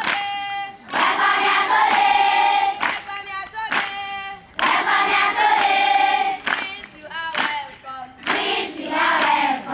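A large group of children singing together in unison, in sung phrases separated by short breaks.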